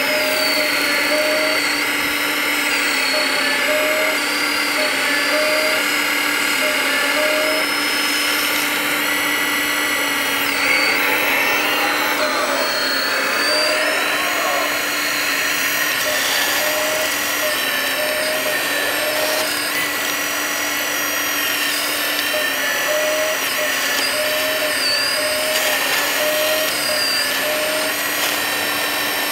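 Electric drive motors of radio-controlled model construction machines running, a steady high whine whose pitch dips and steps slightly as they are throttled.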